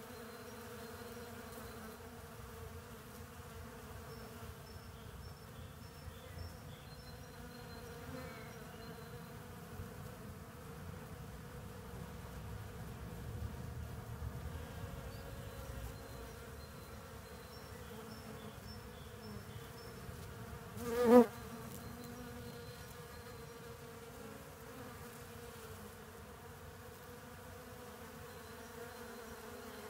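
Bees buzzing steadily at flowering boxwood, a large violet carpenter bee and honeybees among them. About two-thirds of the way in, one buzz swells loud for under a second and stops, as a bee comes right up to the microphone.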